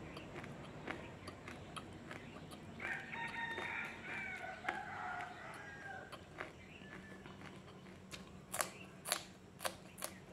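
Raw green chilli being bitten with a few sharp, crisp crunches near the end. About three seconds in, a long animal call sounds in the background for a couple of seconds.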